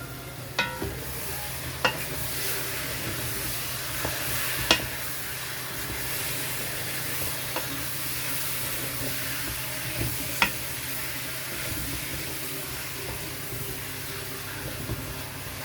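Chicken frying in curry and oil in a pot, a steady sizzle, with about five sharp clicks of a stirring utensil against the pot.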